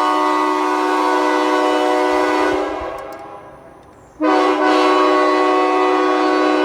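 Nathan Airchime K3HA three-chime locomotive air horn, an 1980s widefont with 1, 2 and 4A bells, sounding a steady chord. The chord dies away over a second or so, then cuts back in abruptly about four seconds in and holds.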